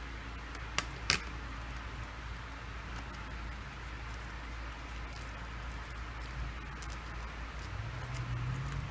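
Handling noise from a smartphone and small plastic parts: two sharp clicks about a second in, then scattered faint ticks over a steady hiss.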